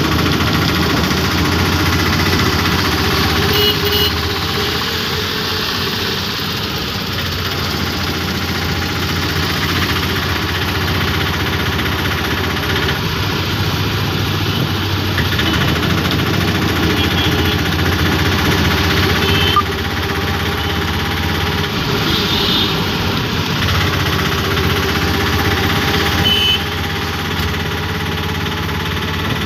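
Auto-rickshaw engine running steadily while under way in city traffic, heard from inside the open cabin. A few short, sharper sounds stand out now and then.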